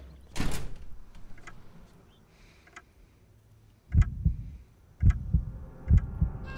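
A restroom door shuts about half a second in. After a near-quiet pause, low heartbeat thumps in pairs, about one pair a second, start around four seconds in: a heartbeat sound effect.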